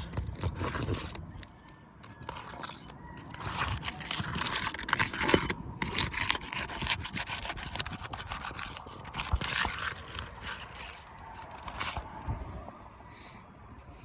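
A roof snake shingle tool scraping under asphalt shingle tabs to loosen them and break their seal, in a run of irregular scrapes and crackles.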